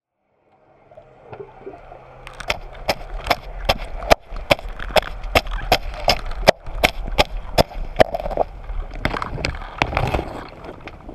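Sharp, very regular clicks recorded underwater, about two and a half a second, over a steady rushing water noise; they fade in at the start and thin out after about eight seconds.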